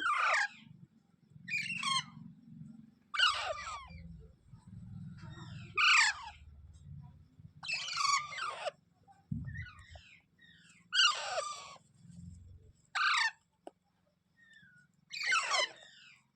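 A parrot giving harsh, short squawking calls, about eight of them spaced every couple of seconds, each falling in pitch.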